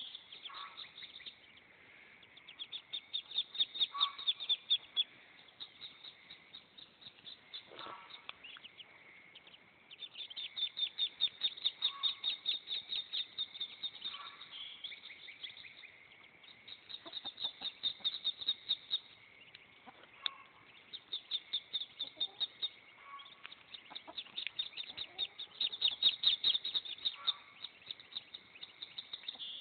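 Muscovy ducklings peeping: runs of rapid, high-pitched chirps, many per second, swelling and fading in bursts every few seconds.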